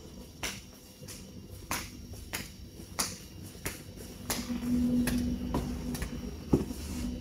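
Footsteps in a room, sharp clicks at an even walking pace of about one and a half steps a second. A steady low hum comes in about four seconds in.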